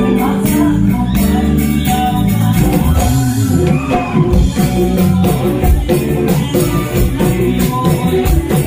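Live band music amplified through a PA, with bass guitar, electric guitars and a drum kit keeping a steady beat, and singing over the top.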